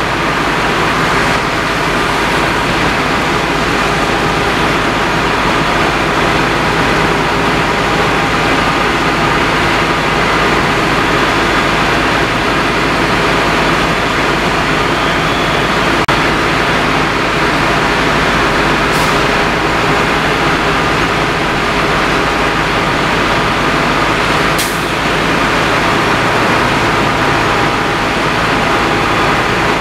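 Fire engines' diesel engines running steadily, a constant heavy drone, with two brief sharp clicks partway through.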